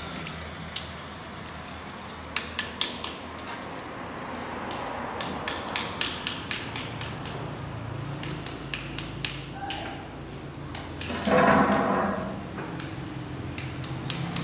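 Runs of sharp taps and clicks from hand tools during floor-tile setting work, a few at a time and then a quick cluster. Near the end comes a louder rushing noise lasting about a second.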